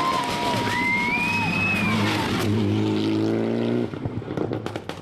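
Turbocharged Mitsubishi Lancer Evolution rally car driving hard past, its engine revving up under acceleration. Just before the end the throttle shuts and the exhaust crackles and pops with a rapid series of sharp backfires.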